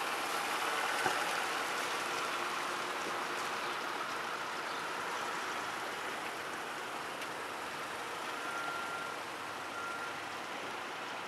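Street traffic: cars driving slowly past close by, a steady hiss of tyre and road noise that eases off slightly toward the end.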